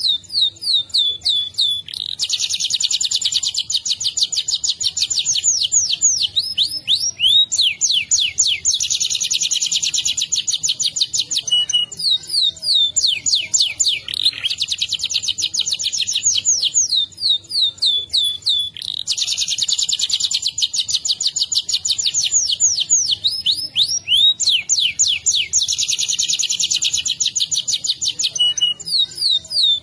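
Domestic canary singing a long rolling song: very fast trills, each held for several seconds, joined by quick runs of rising and falling notes.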